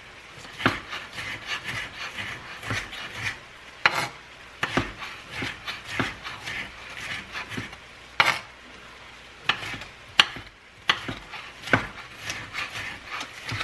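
Kitchen knife dicing green and red bell peppers on a cutting board, the blade rocked and walked back and forth over the pieces: irregular knocks of the blade on the board, with scraping between them.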